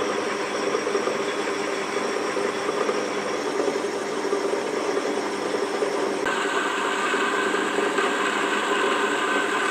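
Metal-working lathe running steadily in gear, spinning a cast-iron valve body while a reamer cuts its bore. The tone changes slightly about six seconds in.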